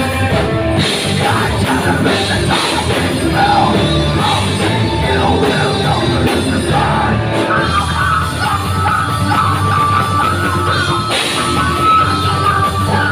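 Live heavy metal band playing at full volume: distorted electric guitars, bass and drum kit, with a vocalist yelling into a microphone. About halfway through, a high held melody line comes in over the band.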